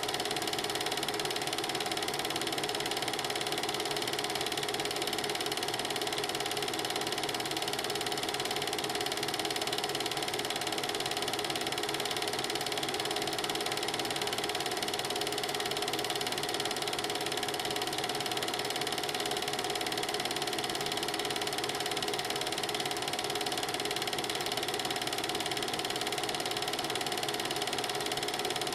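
Film projector running: a steady, rapid mechanical clatter with a constant whine, unchanged throughout.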